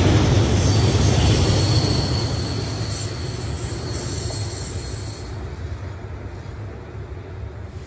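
Freight train of loaded steel-coil wagons rolling past, wheels rumbling on the rails with a thin, steady wheel squeal. The squeal stops about five seconds in, and the rumble fades away as the last wagons pass.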